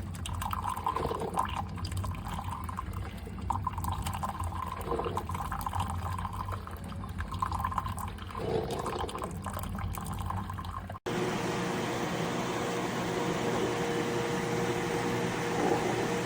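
Mr. Coffee single-serve coffee maker brewing, with coffee running and gurgling into the cup below in uneven spurts. About eleven seconds in, the sound cuts abruptly to a steady hum with a faint steady whine.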